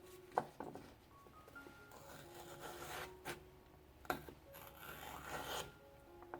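Knife cutting through celery stalks on a cutting board: a few crisp, separate chops, with some rubbing and scraping between them. Soft background music plays underneath.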